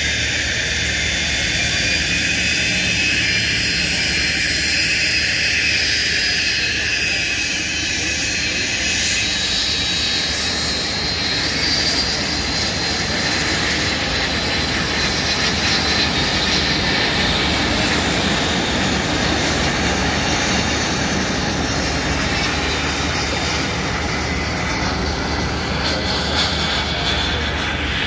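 The PBS Velká Bíteš TJ-100 turbojet of a Super Salto jet sailplane running in flight overhead: a steady rushing whine whose pitch drifts slowly up and down.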